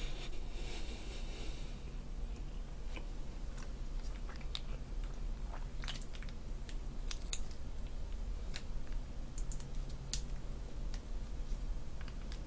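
Faint, scattered clicks and crackles as fingers pull a pizza slice apart in its cardboard box, after a short rustle at the start, over a low steady hum.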